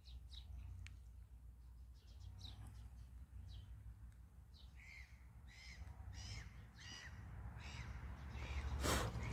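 Birds calling faintly in a series of short, evenly repeated calls about twice a second, over a low steady rumble; a brief burst of noise near the end.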